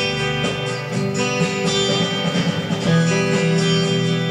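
Electric guitar strumming chords: a Fender Telecaster played through a Fender Blues Deluxe reissue tube amp, changing chords a few times.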